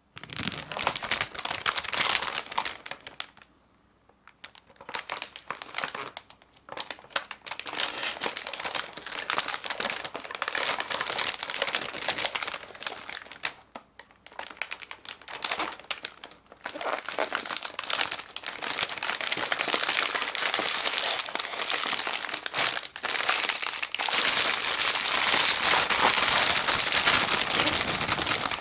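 Clear plastic bag crinkling as hands grip and turn the wrapped package inside it. The crinkling comes in bursts, stops for about a second around 4 s in and briefly again near 14 s, then grows louder and more continuous near the end.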